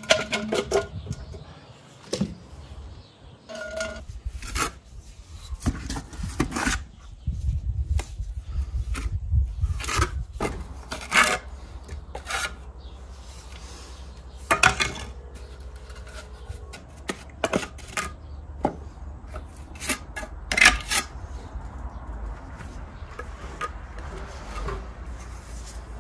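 Irregular scraping and rubbing with sharp knocks, typical of a trowel spreading tile adhesive and pumice-concrete (bims) plates being pressed and tapped into place, over a low steady rumble.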